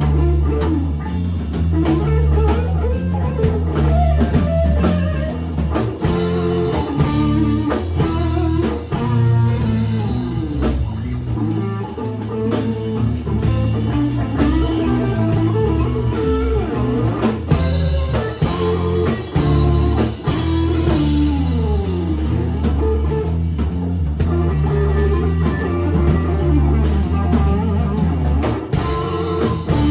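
Psychedelic rock band playing live: electric guitars with bending, sliding lead lines over steady low notes and a drum kit.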